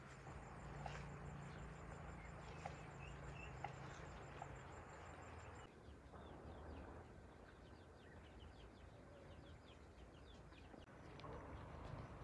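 Faint rural outdoor ambience: insects chirping softly in fast runs of high ticks, with a few light footsteps on a dirt path in the first half.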